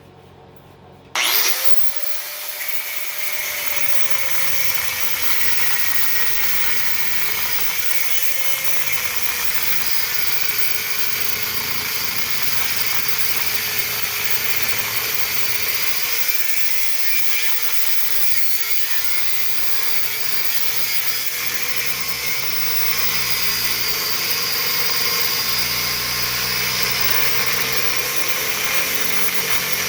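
Power tool with an abrasive cutoff wheel starting up about a second in, then running steadily as it cuts down the side of a scrap transformer. Its motor pitch wavers slightly as the wheel bites.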